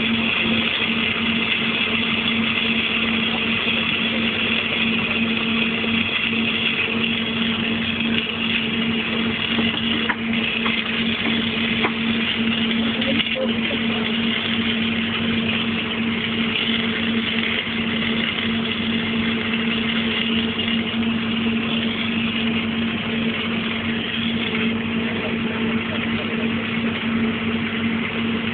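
Engine-driven welding machine running at a steady speed: a constant hum with an even hiss over it.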